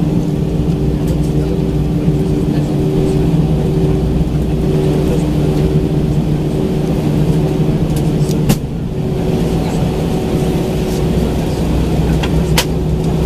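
Airbus A319's jet engines at taxi power heard from inside the cabin: a steady drone with a low rumble and a few held tones. A sharp click about eight and a half seconds in and another near the end.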